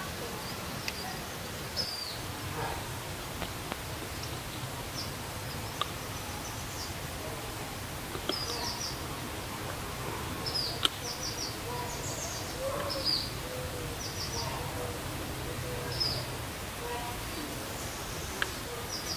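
Forest ambience: short high bird chirps every second or two, some in quick runs of three, over a steady low background noise, with a few faint clicks.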